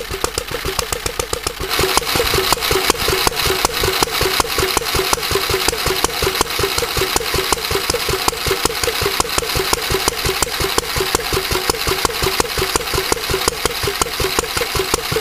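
Lister D single-cylinder stationary engine (2 hp, 1000 rpm, with an F-type direct-drive governor) running steadily, its evenly spaced firing beats coming several times a second. It gets louder and brighter about two seconds in.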